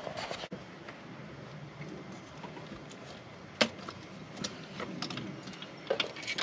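Hands working at a car's throttle body and unplugging the throttle position sensor connector: a few faint clicks and knocks, the sharpest about three and a half seconds in.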